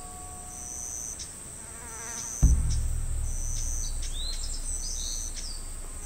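Insects buzzing steadily at a high pitch, with short bird chirps near the start and again after the middle. About two and a half seconds in, a sudden deep thud breaks in and leaves a low rumble underneath.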